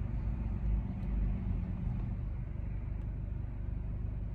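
Steady low rumble, like a vehicle running, with no speech over it.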